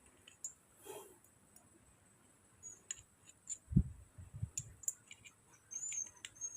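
Scattered light clicks and taps of small parts being handled on a grass-cutter engine under repair, with a duller knock a little under four seconds in.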